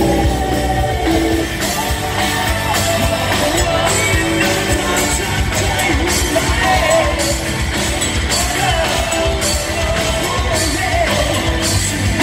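Thai rock band playing with a lead singer, loud and continuous, picked up by a phone's microphone in a large hall.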